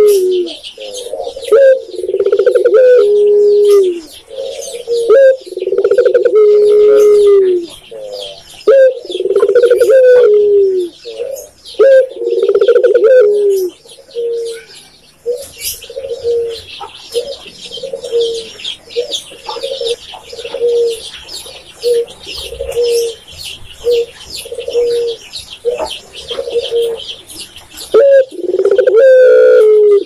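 Caged spotted dove (tekukur) cooing in loud, repeated phrases, each a low coo that drops in pitch at its end. Through the middle stretch the coos turn short and soft, quick notes about twice a second, and loud phrases return near the end. Dense high chirping of small birds runs underneath.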